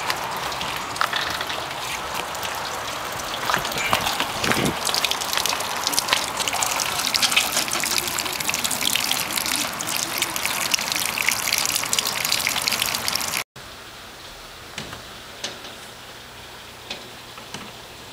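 Water gushing steadily from a drainage pipe and splashing into a foam-covered basin, with much crackling. About thirteen seconds in it cuts off abruptly to a quieter hiss of rain with a few scattered drop ticks.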